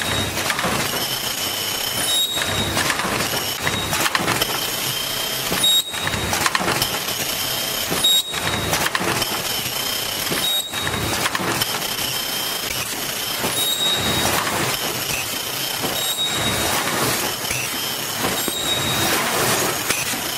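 Fully automatic KN95 mask-making machine running: a dense mechanical clatter with a cycle of short, high-pitched squeals and clicks that repeats about every two seconds.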